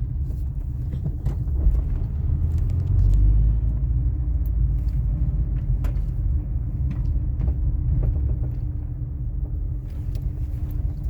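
2000 Toyota RAV4 in motion: a steady low road rumble and hum, with scattered short sharp clunks and knocks every second or so. The clunking is not from the sway bar, whose bushings and links have been replaced.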